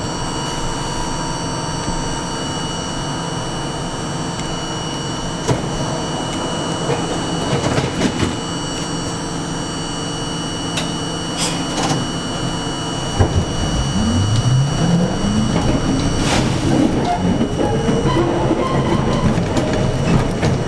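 R42 subway car standing with a steady hum and a few scattered clicks and knocks; about two-thirds of the way in, its traction motors start up with a rising whine and the sound grows louder as the train pulls away.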